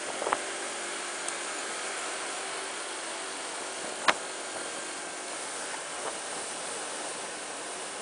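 Steady wind and road rush on a moving Honda PCX scooter, its engine running faintly underneath. A single sharp click about four seconds in is the loudest moment.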